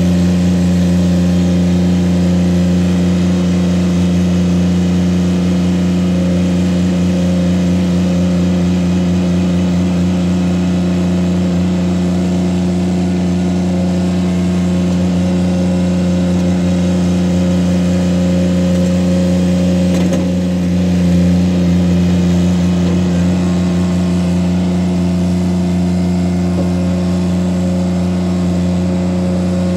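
Ditch Witch SK600 mini skid steer's engine running steadily while the machine drives and works its loader bucket, with a brief dip and then swell in level about two-thirds of the way through.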